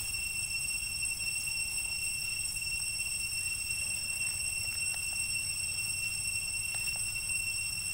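Steady, unbroken high-pitched insect drone, cicadas, over a low rumble, with a few faint ticks.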